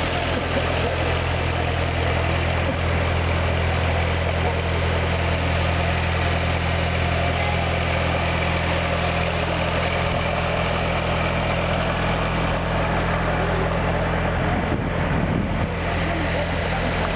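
Diesel engine of a Ferroviaria Andina passenger train idling: a steady, unchanging low drone with a constant hiss above it.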